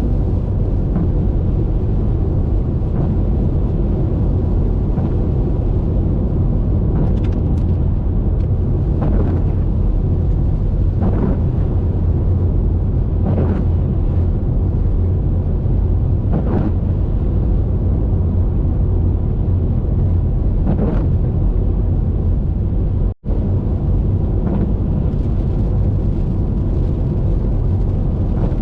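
Steady low rumble of road and wind noise from a car driving along a highway, with faint brief swishes every few seconds. About four-fifths of the way through, the sound cuts out for a split second.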